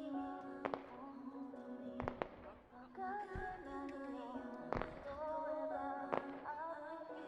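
A pop song with a female singer plays while aerial firework shells burst with sharp booms about six times, two of them in quick pairs around two and five seconds in.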